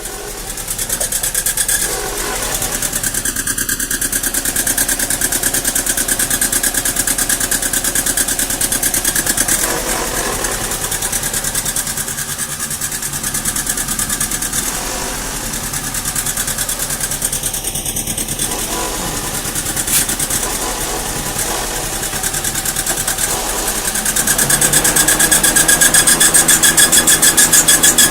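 Mazda Protegé four-cylinder engine idling roughly, louder for the last few seconds. The rough idle comes from a misfire on cylinder 2, which the scanner reports as code P0302.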